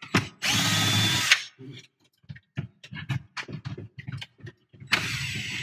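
Cordless drill/driver with a T15 Torx bit running in short bursts to back out glove-box screws: a steady whir of about a second near the start, light clicks and knocks in between, then another run starting near the end.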